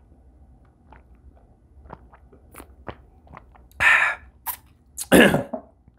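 A man drinking juice from a glass jar, with faint swallowing gulps and clicks. About four seconds in he lowers the jar and breathes out twice, loud and breathy, like a satisfied sigh after a long drink.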